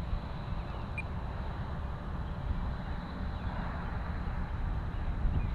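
Wind buffeting the microphone as a steady low rumble, with a short high bird chirp about a second in.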